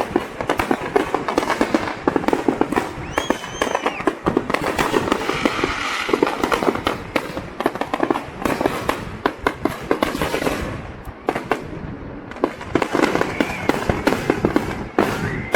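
Fireworks going off in rapid, overlapping succession, a dense run of crackling bangs, easing briefly about eleven seconds in before picking up again.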